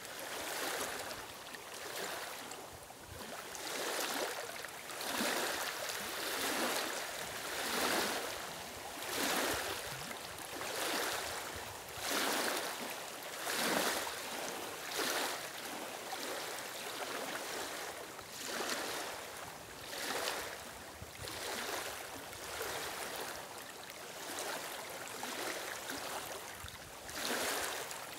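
Small waves lapping onto a stony lakeshore among reeds, a soft wash of water swelling and falling back about every one and a half seconds.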